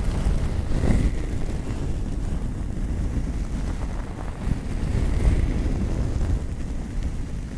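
Hands stroking and rubbing right against the microphone, giving an uneven low rustling rumble.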